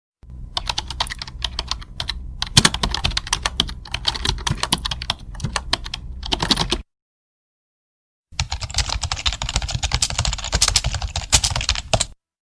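Typing on a computer keyboard: rapid, irregular key clicks in two runs, the first about six and a half seconds long, then after a second and a half of silence a second run of about four seconds.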